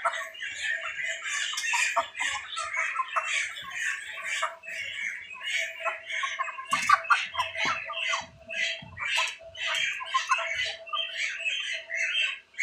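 A flock of broiler chickens squawking and calling over one another without a break, with a steady faint hum underneath.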